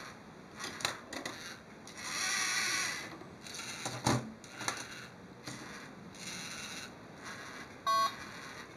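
LEGO Mindstorms servo motors whirring in bursts as a Technic robotic arm swings, lowers and grips a small ball, with plastic clicks and knocks, the loudest about four seconds in. A short electronic beep sounds near the end.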